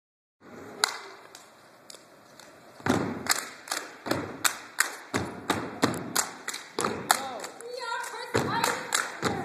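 A step team's stomps and hand claps in a fast, even rhythm, about two to three hits a second, starting about three seconds in. Voices chant or call out over the beat near the end.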